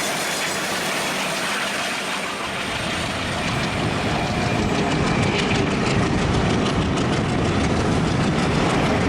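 Train running on rails, its wheels clattering over the track. The rumble deepens and grows louder about three seconds in, with a quick run of clicks in the second half.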